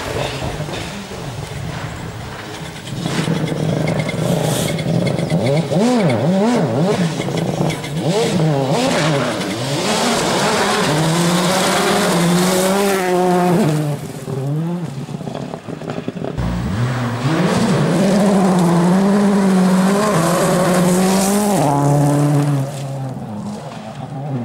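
Rally car engine revving hard on a stage, its pitch climbing and falling with gear changes and lifts. About two-thirds of the way in it drops back briefly, then holds high revs again before easing off near the end.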